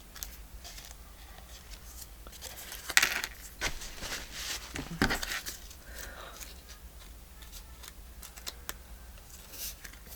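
Paper and small metal craft pieces being handled: a few light clicks and short rustles, the loudest about three and five seconds in.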